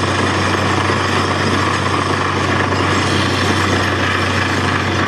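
Truck-mounted borewell drilling rig running steadily as its drill rod bores into the ground: a loud, constant engine hum under dense mechanical noise.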